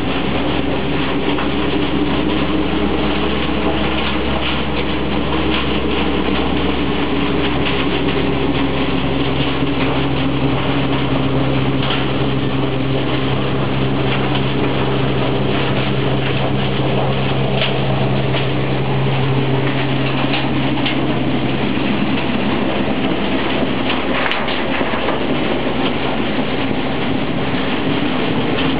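Hay blower running steadily, blowing second-cut hay through the overhead duct and telescopic distributor into the loft: a loud, even drone with a steady rush of air and hay.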